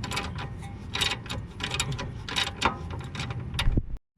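Ratchet wrench clicking in quick, irregular strokes as a 17 mm nut is backed off, with metallic clinks of the socket and nut. The sound cuts off abruptly near the end.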